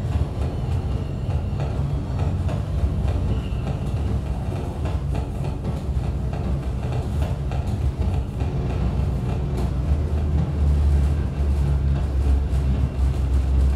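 Harsh noise played live on a modular synthesizer through a PA: a dense, continuous wall of distorted rumbling noise, heaviest in the low end, with no beat or melody.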